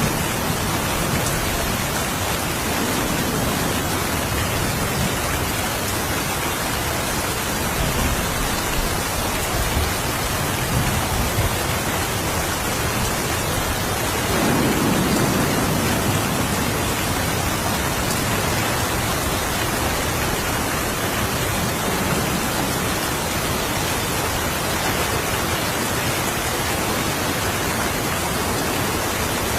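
Steady rain falling, an even hiss throughout. About halfway through, a low rumble of distant thunder swells for a few seconds and fades.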